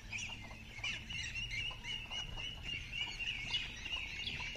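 A flock of domestic ducks quacking and chattering together, many short overlapping calls running on without a break.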